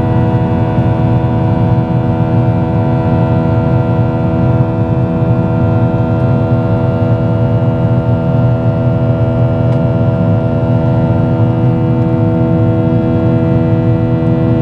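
Boeing 737-800 cabin noise with its CFM56-7B engines running at steady power: a constant low rumble under several steady, unchanging tones.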